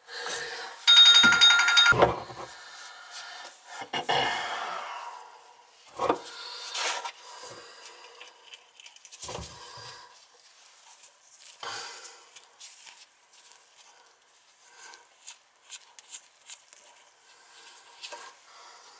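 Old chrome shutoff valve under a bathroom sink being worked by hand: scattered light metal clicks and rubbing as the valve stem is turned and handled. About a second in, a loud high trilling ring sounds for about a second.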